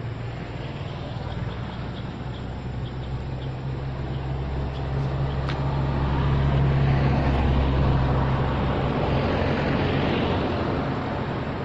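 Low engine drone that grows louder through the middle and fades near the end.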